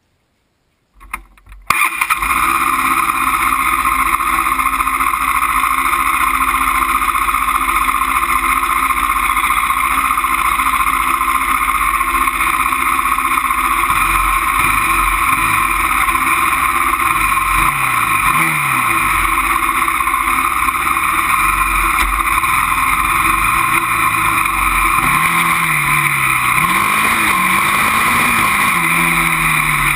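Honda TRX400EX quad being ridden, heard from a camera mounted on its front suspension. Steady loud engine and wind noise starts suddenly about two seconds in. In the second half the single-cylinder engine's pitch rises and falls repeatedly as the throttle is worked.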